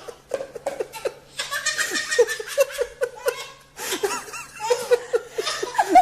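Someone laughing hard and high-pitched, in quick repeated bursts over several bouts.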